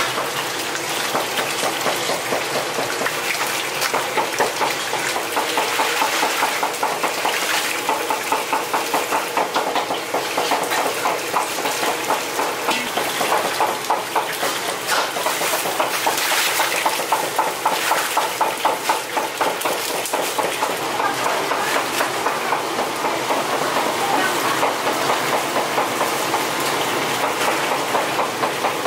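Wet squelching and splashing from gloved hands working raw pork belly, seasoning and water in a large cooking kettle, with many rapid small splashes in the middle part, over a steady rushing kitchen noise.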